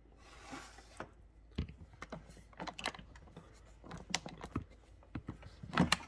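Plastic water tank of a De'Longhi PrimaDonna S coffee machine being handled and slid back into the machine's side: a run of irregular clicks and knocks, the loudest near the end as it seats.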